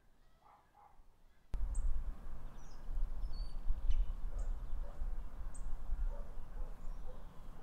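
Low-level outdoor ambience with faint bird chirps. About a second and a half in, it cuts abruptly to a much louder take full of unsteady low rumble, wind buffeting an unprotected microphone with no low-cut filter, with short high bird chirps over it.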